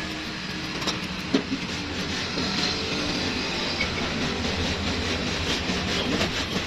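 Machinery running steadily with a hum, a clattering rattle and scattered clicks.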